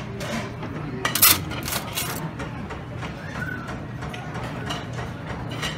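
Busy restaurant buffet with a steady low hum, and a few sharp tableware clinks about a second in and again near two seconds.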